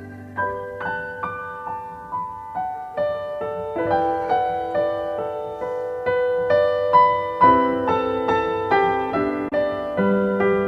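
Background music: a slow piano melody of single struck notes, each ringing and fading before the next.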